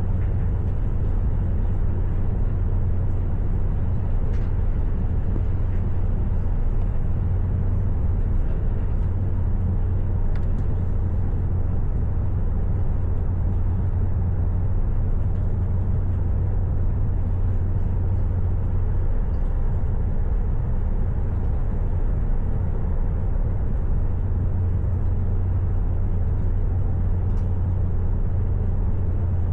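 Steady low rumble of a vehicle in motion, with a few faint clicks.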